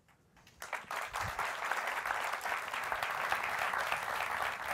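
Large seated audience applauding, starting about half a second in after a brief hush and going on steadily.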